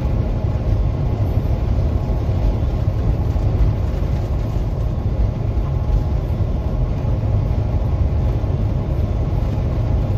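Semi truck cruising at highway speed, heard from inside the cab: a steady low engine drone under road and wind noise.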